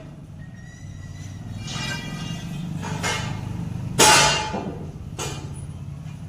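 A sharp metallic clank about four seconds in, with lighter knocks a second before and after, over a steady low hum: metal parts of a power loom being struck and worked loose while it is taken apart.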